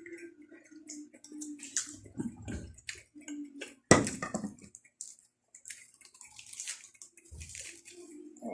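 Close-miked chewing of raw Chinese kangkong (water spinach) leaves and stems: wet crunching and mouth clicks, with one sharper crunch about four seconds in.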